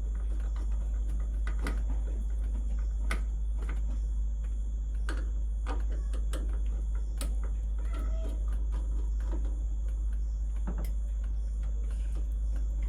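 Scattered small clicks and taps of electrical wiring being fitted and screwed into an air conditioner outdoor unit's terminal block, over a steady low rumble.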